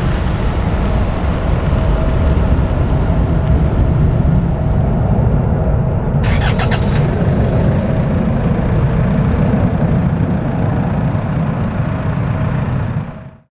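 Distant rumble of a Boeing 737-800 jet's CFM56-7B turbofan engines in flight, steady and low with a faint held tone. A quick cluster of clicks sounds about six seconds in, and the sound fades out sharply near the end.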